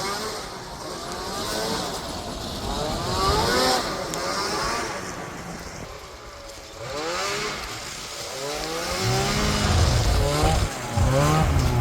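Two-stroke snowmobile engines revving up and down again and again, the pitch rising and falling in repeated sweeps, with a steady low engine drone growing louder near the end.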